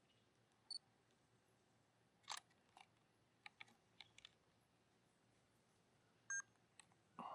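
Near silence, broken by a few faint, scattered clicks and brief high blips.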